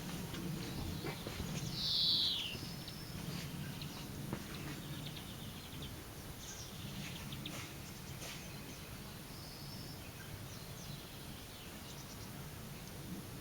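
Outdoor ambience with wild birds calling: one loud, short downward-sliding chirp about two seconds in, then a few fainter high chirps and ticks. A steady low rumble runs underneath.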